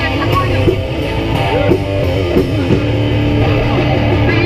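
Live rock band playing loud: electric guitar over a drum kit.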